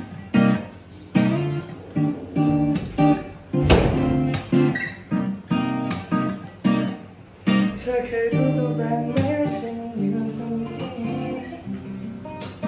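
Cutaway steel-string acoustic guitar played solo: a run of picked and strummed chords, each one ringing on, with one loud low thump a little under four seconds in.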